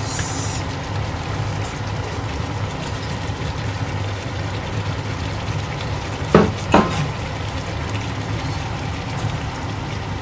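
Pork belly braising in its sauce in a frying pan, a steady simmering bubble, with two short knocks about six and a half seconds in.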